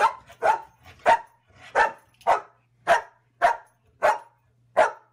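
Dog barking repeatedly, about two sharp barks a second.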